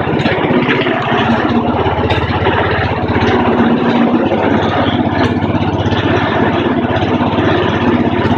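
The 3.5-horsepower lawn mower engine of a homemade 12-volt generator idling steadily. It is belt-driving an alternator that is charging a battery bank.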